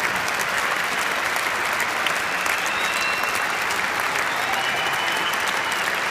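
Large arena audience applauding, a dense steady clapping with voices in the crowd mixed in.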